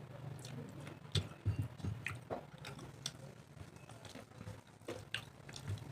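A person chewing and smacking their lips while eating a rice meal close to the microphone, with irregular wet clicks and smacks over a steady low hum.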